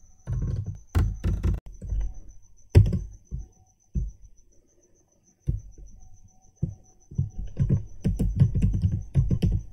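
Typing on a computer keyboard: short runs of keystrokes, a pause of about a second in the middle, then a fast dense run of keys near the end.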